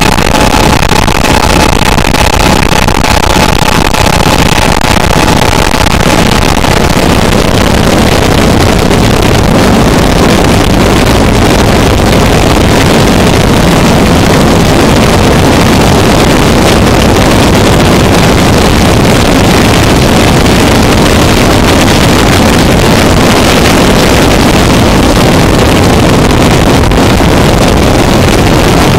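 Harsh noise music: a loud, unbroken wall of dense distorted noise across the whole range. A thin steady tone sounds over it at first and fades out about six seconds in.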